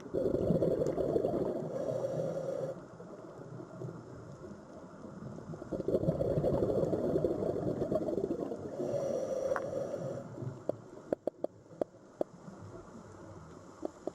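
Sea waves washing in, two long surges of rushing water with a quieter wash between them. A run of short sharp clicks follows near the end.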